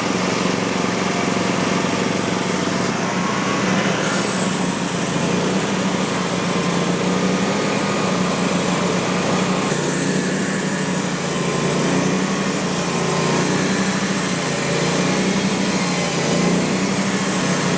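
Hydraulic sawmill's gasoline engine running steadily at high throttle, a constant engine hum with no break.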